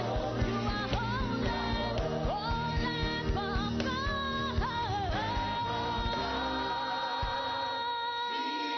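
Church worship song: a lead singer over drums and bass. About five seconds in, the singer holds one long high note while the drums and bass drop away.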